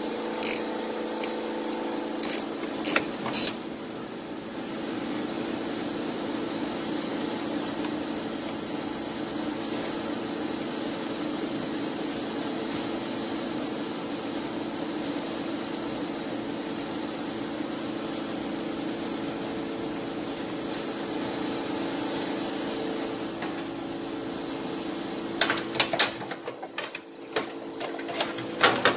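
A steady mechanical hum, like a fan or other running machine, with short metallic clicks and clinks of hand tools on engine parts in the first few seconds and again near the end.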